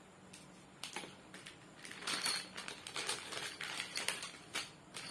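Plastic packaging crinkling and crackling as it is handled and pulled open, a quick irregular run of crackles that starts about a second in.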